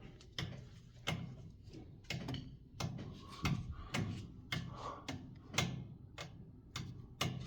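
A series of sharp clicks and knocks, roughly one every half second, each with a dull low thump under it.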